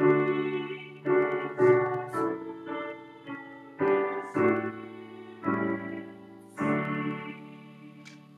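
Piano playing a slow series of chords, each struck and left to ring away, about one a second.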